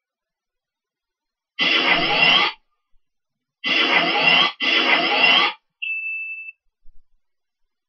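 Sound effects of an animated logo intro: three bursts of about a second each with a rising whine inside them, the last two back to back, then a short steady high beep.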